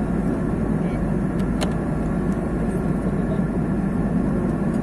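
Steady cabin noise of an Airbus airliner in flight: jet engine and airflow noise as an even low rush, with one faint click about a second and a half in.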